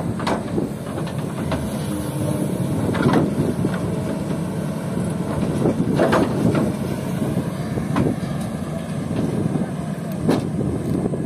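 Kobelco SK200 excavator's diesel engine running under load as it swings and dumps its bucket, with sharp knocks every two or three seconds from the bucket and from sand and gravel landing in a dump truck's bed.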